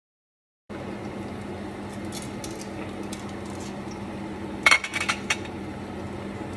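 Metal kitchen tongs set down on a ceramic plate: a quick cluster of sharp clinks about four and a half seconds in, over a steady low hum. The sound begins after a moment of dead silence.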